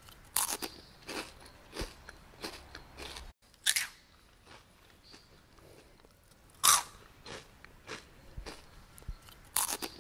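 Potato chips being crunched while eaten: a run of crisp, irregular crunches, a few of them much louder than the rest.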